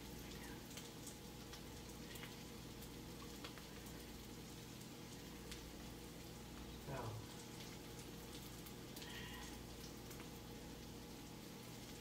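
Faint light clicks and crackle of kitchen handling over a steady appliance-like hum, with one brief sliding sound about seven seconds in.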